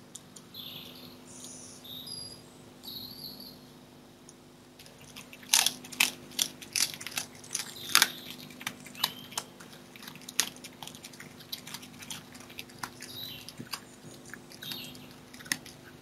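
Birds singing for the first few seconds. Then a red fox chewing meat, a fast irregular run of sharp crunches and clicks that goes on to the end, with more birdsong behind it and a low steady hum throughout.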